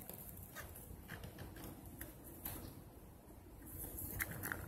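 Faint clicks and rubbing of plastic bottle parts being handled: a teat ring being screwed onto a plastic container and a plastic cover fitted over the nipple, with a few slightly sharper clicks near the end.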